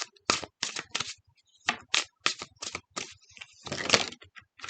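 Tarot cards being shuffled by hand: a quick, irregular run of sharp card slaps and flicks, with a longer rustling shuffle near the end.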